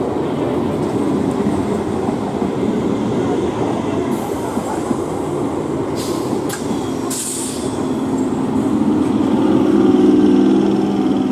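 Electric multiple-unit local train running past on a curved track, with a steady rumble of wheels on rail. Brief high-pitched wheel squeal comes about seven seconds in, and a steady low hum swells near the end.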